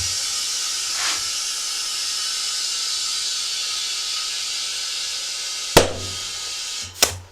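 Compressed air hissing steadily into a soaped tubeless ATV tire, then two sharp pops, a little before and right at the seven-second mark, as the tire bead seats on the rim; the hiss stops just after the second pop.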